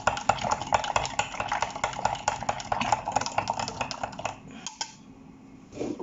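Fast, even clicking and rattling of a milkshake being mixed in a container, stopping about four and a half seconds in.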